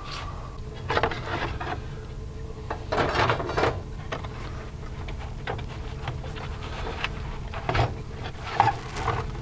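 Scraping, rubbing and knocking of a heater core being worked loose inside an old fiberglass heater box, in a few separate bouts with the loudest just after 3 seconds. A faint steady hum runs underneath.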